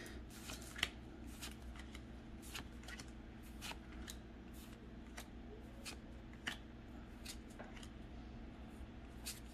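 Pokémon trading cards being looked through one at a time from a hand-held stack: faint, irregular light clicks and slides of card stock as each card is pulled off and laid on a pile.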